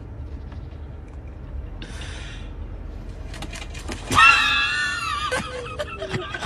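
A person's high-pitched, wavering scream, starting about four seconds in, lasting about a second and trailing off. A short hiss comes about two seconds in.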